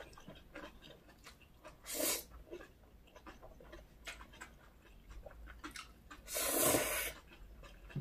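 Close-miked eating of chewy whelk and spicy noodles: soft wet chewing clicks, with a short slurp about two seconds in and a longer, louder slurp near the end.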